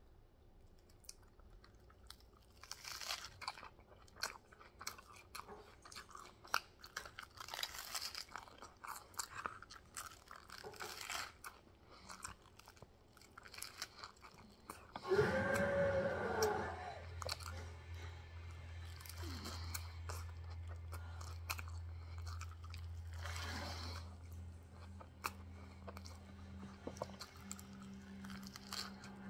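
Close-up chewing and crunching as a spaghetti-and-meat-sauce sandwich on a bun, topped with crisp lettuce, is bitten into and eaten. There is a louder burst about halfway, after which a steady low hum sits underneath.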